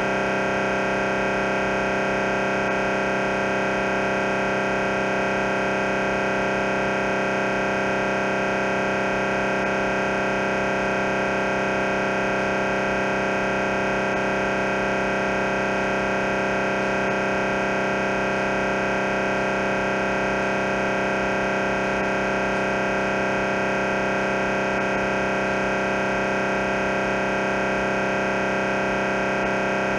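MRI scanner's gradient coils running a T1-weighted axial sequence: a steady, unchanging buzz made of many held tones.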